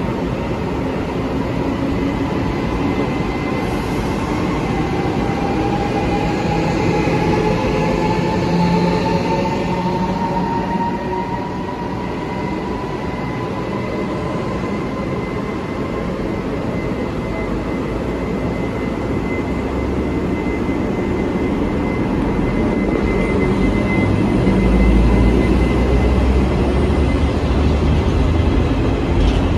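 Taiwan Railways E400-class electric locomotive E414 pulling a passenger train away from the platform, its traction motors giving a whine that rises slowly in pitch as it gathers speed. The coaches then roll past with a heavier rumble that swells near the end.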